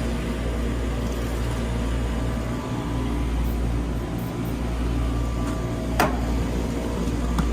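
Steady mechanical hum of running chiller equipment, with several steady tones over a low drone. A sharp knock about six seconds in and a lighter one near the end.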